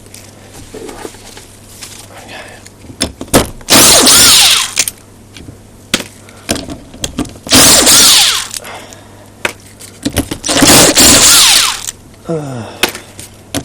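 Battery drill/driver run in three bursts of about a second each, its motor whine rising as it spins up, with clinks and knocks of tools and metal parts between the bursts.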